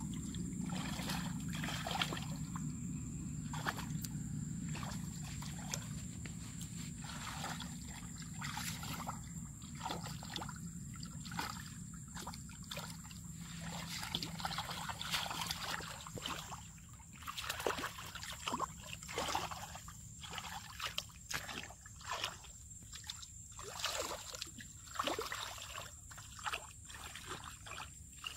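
Shallow muddy water sloshing and splashing irregularly as hands and arms grope through it and the mud beneath, feeling for fish.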